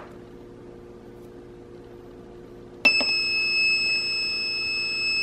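Hamilton Beach programmable slow cooker's control panel sounding one long, high-pitched electronic beep, starting about three seconds in: a horrific noise that signals the cooker has started cooking.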